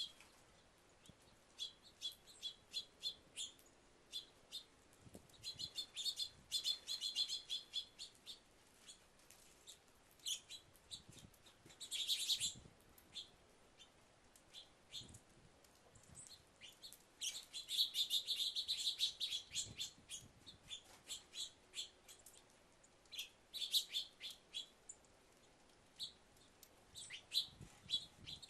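Small birds chirping: many short, high chirps in clusters, with a few busier bursts of overlapping chatter.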